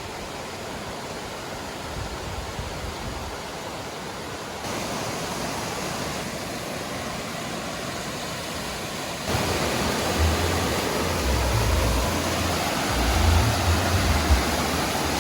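Rushing river water: a steady hiss with no breaks, growing louder about four and a half seconds in and again about nine seconds in. Low rumbling comes and goes over the last few seconds.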